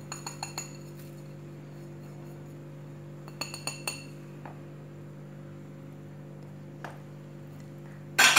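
A small dish tapped against a mixing bowl to knock spices out, giving two short runs of light ringing clinks a few seconds apart. A single tick follows, then a much louder clatter near the end as something is set down.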